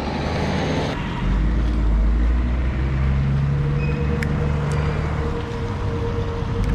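Road traffic: motor vehicle engines running with a steady hum and a heavy low rumble that swells about a second in.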